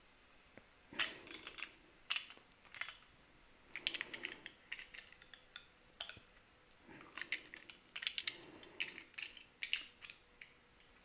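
Irregular scraping and clicking as a small blade works at the insulation of a thick red battery cable and a tinned cable lug is handled, with light metallic clinks between the scrapes.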